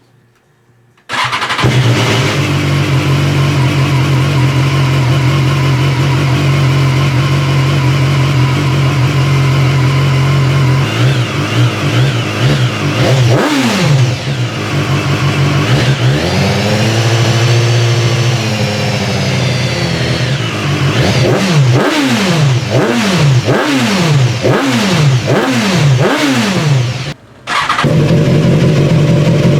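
BMW S1000XR inline-four engine running loud through a Firetong aftermarket muffler. It comes in about a second in and idles steadily, is revved up and back down twice, then gets a quick run of about seven short throttle blips before settling back to idle.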